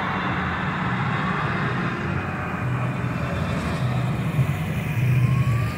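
Diesel farm tractors driving past one after another, their engines making a steady low rumble over tyre noise on the road, swelling a little near the end as one passes close.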